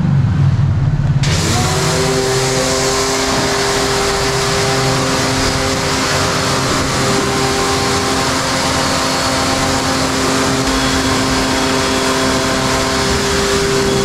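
Electric pressure washer running with its trigger pulled about a second in: a steady motor-pump whine under the hiss of the water jet, spraying down a soaped motorcycle.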